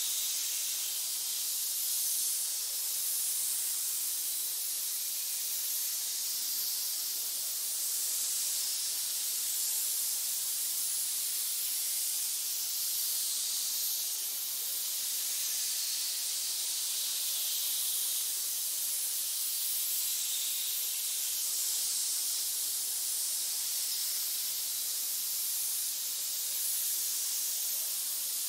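Continuous high-pitched hiss, a snake-hiss sound effect, steady throughout with slight swells every couple of seconds.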